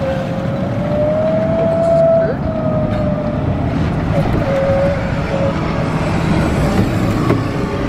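A car driving along a road: steady road and engine noise, with a faint held whine that cuts in and out.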